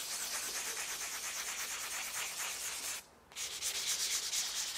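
Diamond sanding pad rubbed in rapid strokes over the rough unglazed foot of a glaze-fired porcelain vase, taking off the little burrs left by the kiln shelf. The rubbing pauses briefly about three seconds in, then starts again.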